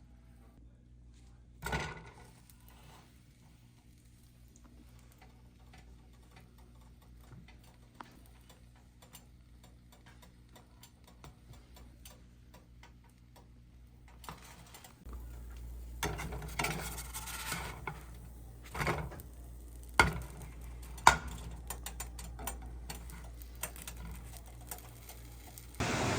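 Kitchen handling sounds while a grilled cheese is being made: scattered light clicks and taps with a louder knock early on. A steady low hum comes on about halfway through, followed by several sharp clatters of pans and utensils.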